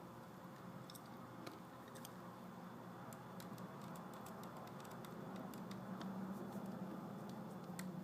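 Faint, irregular clicks and taps of a laptop's plastic casing and parts being handled during a screen repair, over a steady low hum.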